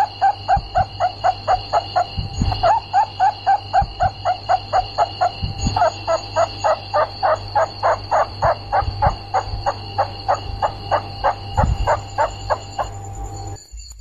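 Rats squeaking in a fast, even series of short calls, about four a second, over a steady high whine and a low hum; everything stops abruptly near the end.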